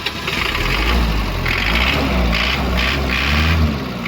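Toyota 2L 2.4-litre four-cylinder diesel engine idling with a steady low drone. Patches of higher rattling noise come and go over it.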